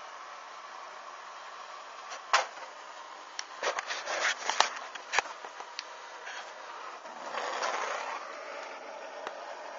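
Handheld gas torch hissing at burning white material on paving stones. A run of sharp crackles and knocks comes in the middle, and a louder rush of flame follows about seven seconds in as the torch is brought close.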